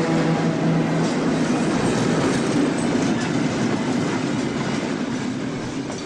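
Train sound effect: a train horn that stops about a second and a half in, then the steady clatter of a passing train that slowly fades away.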